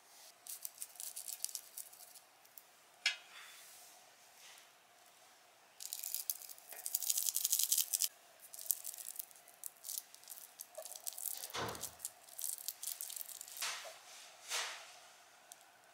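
Close-up handling noises: bursts of crackling and rattling, densest from about six to eight seconds in, with a couple of softer swishes near the end.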